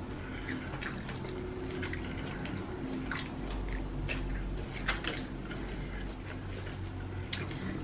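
Two people eating fried chicken drumsticks with their hands: quiet wet chewing and the meat being torn off the bones, with scattered small clicks.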